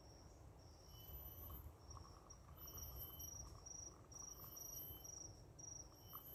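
Faint insect chirping: short, high, pulsing trills repeating about twice a second over a low background rumble.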